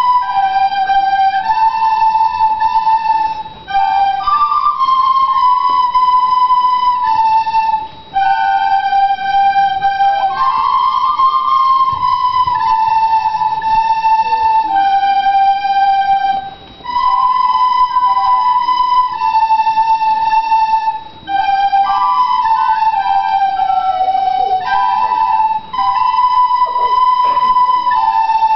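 A class of children playing a simple melody together on recorders, held notes with brief pauses between phrases every few seconds.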